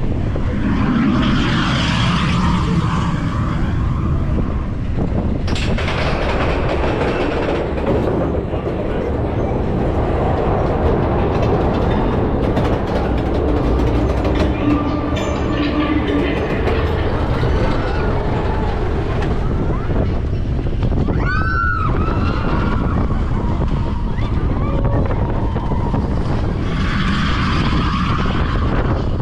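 Seven Dwarfs Mine Train roller coaster cars rumbling steadily along the track, heard from a seat on the train, with riders yelling near the start and again near the end.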